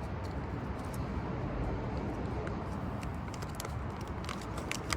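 Steady low background noise, with a few light clicks near the end as the packaging of a set of small RC wheels is handled and opened.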